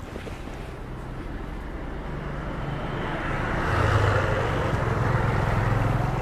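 A motor vehicle engine running on the road, growing louder about three seconds in as it comes near.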